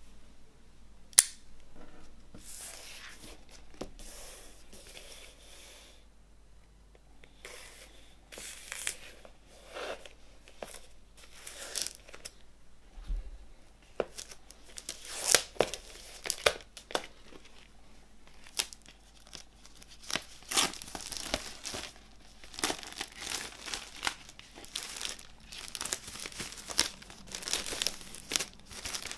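Clear plastic shrink wrap being torn open and peeled off a vinyl LP sleeve, crackling and crinkling in irregular bursts that come thicker in the second half. A single sharp snap about a second in, and a short lull around six seconds.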